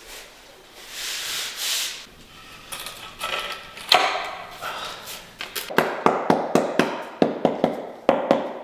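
Mallet tapping a ceramic floor tile down into place: a sharp knock about four seconds in, then a quick run of ringing taps, about three or four a second, near the end, after some scraping and shuffling as the tile is positioned.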